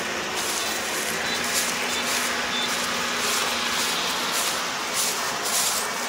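An engine running steadily, with a constant hissing noise over it.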